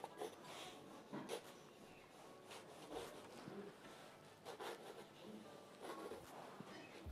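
Pencil drawn lightly across drawing paper: faint scratching rubs in about half a dozen separate strokes as an outline is sketched.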